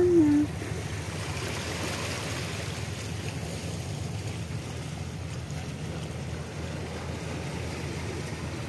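Steady low rumble of harbour ambience: wind and water, with a large passenger ship's engines running in the distance. A brief pitched call sounds right at the start.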